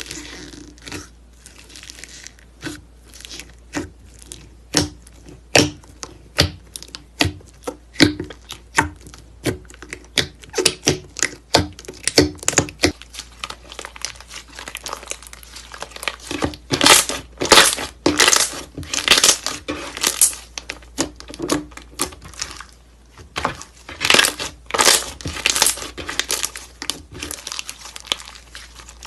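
Slime being squeezed, pressed and stretched by hand, giving runs of sharp wet pops and crackles, several a second, coming in clusters that thicken about halfway through and again a little later.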